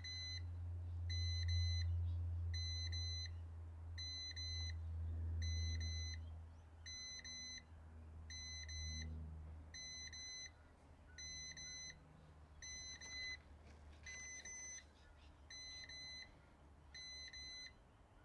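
Ryobi 18V ONE+ jump starter beeping steadily, one short high beep about every three-quarters of a second, while its button is held down to force-prime its capacitors for a dead car battery. A low hum runs underneath, louder in the first half and fading after that.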